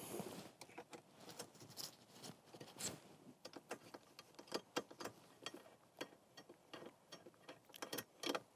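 Light, irregular metal clicks and ticks of a wrench working on the rear-rack bolts as they are loosened.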